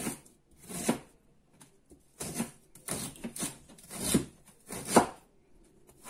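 Chef's knife chopping fresh ginger on a plastic cutting board: about seven separate cuts, unevenly spaced, each a short knock of the blade against the board.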